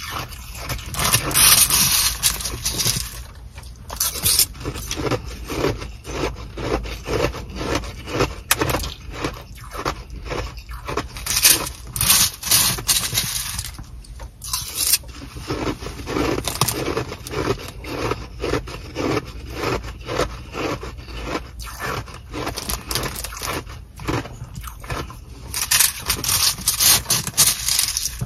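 Metal spoon scraping and chipping at a bag of hard, frozen-together Sonic nugget ice, in loud bursts of many quick strokes. Crunching of ice being chewed comes in between the scraping bursts.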